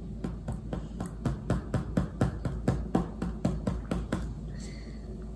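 Silicone spatula tapping in quick succession against the rim of a plastic food container, about five taps a second, knocking ice cream off into it; the tapping stops about four seconds in.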